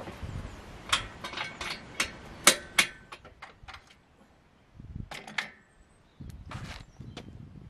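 Irregular sharp metal clinks and knocks, some ringing briefly, from steel being handled on a welded steel frame. They come thickest in the first few seconds, then a few more about five seconds in, and a short rustle near the end.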